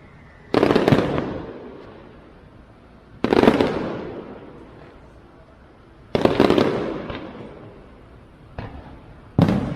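Fireworks bursting: a sudden loud bang roughly every three seconds, each dying away over a second or two, then two smaller bangs in quick succession near the end.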